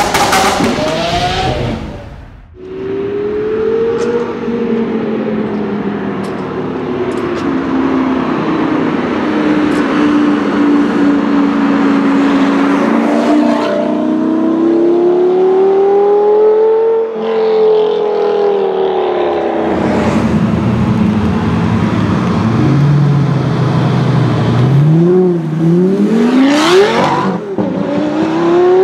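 Lamborghini Gallardo Superleggera's V10 with an aftermarket Tubi exhaust, loud, accelerating and revving as the car pulls away. Its pitch climbs and falls in long sweeps, with hard, steeply rising revs near the end. A short separate opening sound cuts off about two seconds in.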